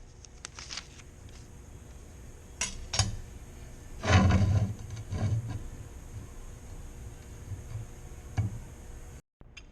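Hard objects being handled in a workshop: a few separate clinks and knocks, the loudest a cluster about four seconds in, with a quieter knock near the end over a faint steady hiss.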